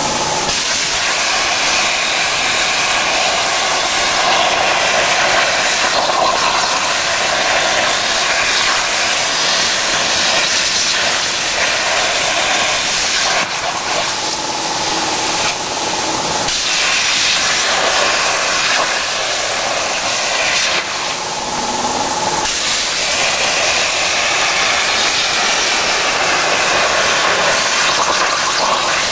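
A CNC plasma cutting torch cutting steel plate gives off a loud, steady hiss. The hiss shifts in tone a few times midway, as the torch moves between cuts.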